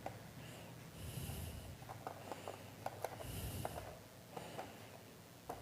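A screwdriver undoing a small screw in a laptop's optical-drive bay: faint scattered clicks and ticks of the tip working the screw, with two soft nasal breaths from the person working.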